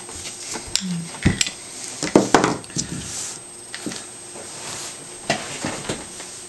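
A handful of scattered clicks and knocks, hard objects being handled and set down.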